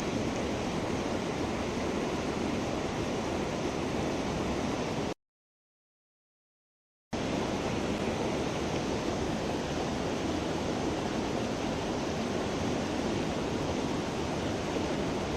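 Mountain creek water rushing steadily. About five seconds in, the sound cuts out to complete silence for about two seconds, then returns unchanged.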